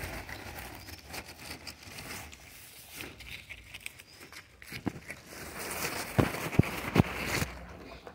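Handling noise close to the microphone: rustling and scattered clicks, with a few sharp knocks about five to seven seconds in.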